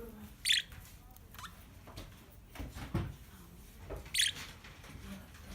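Small pet birds giving two short, high chirps, about half a second in and again about four seconds in, with a soft thump in between.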